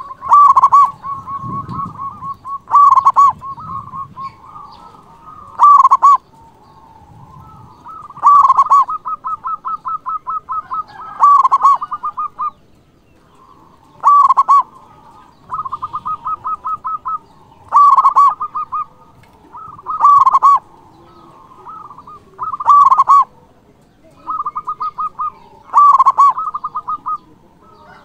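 Zebra dove (perkutut) singing its cooing song over and over: about ten loud ringing notes, one every two to three seconds, joined by stretches of rapid, even, rolling trills.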